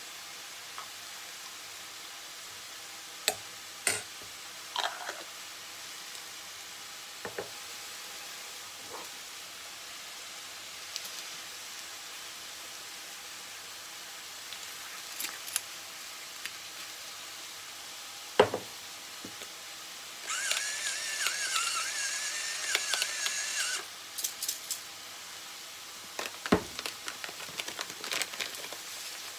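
Kitchen handling sounds: a metal spoon clicking against a glass jar and a stainless steel mixing bowl in scattered knocks, the sharpest about two-thirds of the way in. A few seconds of liquid pouring from a bottle into the bowl follow, then a plastic packet crinkling near the end.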